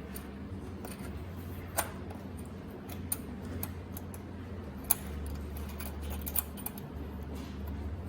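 Scattered sharp clicks and light rattles of a multi-pin cable connector being handled and plugged into an ultrasonic spot welding machine, over a low steady hum.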